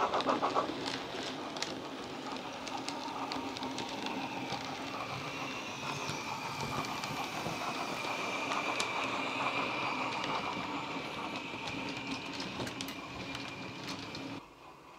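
Sound decoder of a Bachmann LMS Patriot model locomotive playing a three-cylinder LMS steam sound file through a small megabass speaker in the tender: fast chuffing as the model runs past, with sharp clicks of its wheels over the model track. The sound cuts off sharply just before the end.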